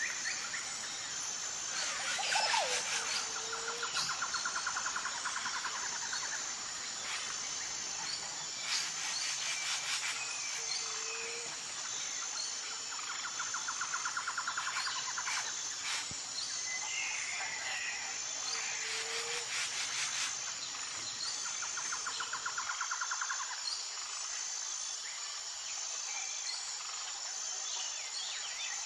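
Outdoor nature ambience: insects chirp steadily in a constant high, pulsing drone. Birds call over it, including rapid two-second trills repeated several times and short chirps.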